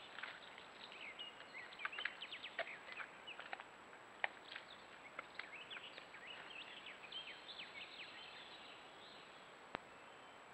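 Small birds chirping in a busy scatter of short high notes that thin out near the end, with a single sharp click shortly before the end. A faint steady high tone runs underneath.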